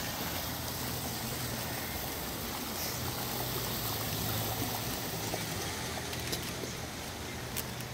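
Water from a small decorative waterfall splashing over artificial stones, a steady rush of falling water.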